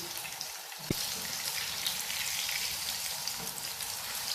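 Egg-coated chicken and potato cutlets sizzling steadily as they shallow-fry in hot oil, with a single sharp click about a second in.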